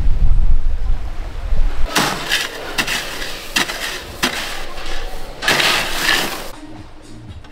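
Low wind rumble on the microphone for about the first two seconds. Then a plastic dish scrapes and crunches through crushed ice in a plastic cooler, with clattering knocks. Soft music comes in near the end.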